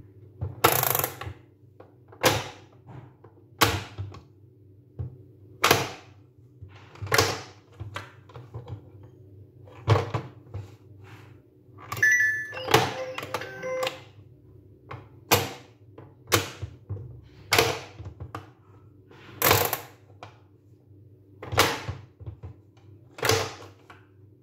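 Plastic pop-up animal toy being played: sharp plastic clacks and thunks, one every second or two, as buttons are pressed and animal lids spring up and are pushed back down. A brief electronic tone comes from the toy about halfway through.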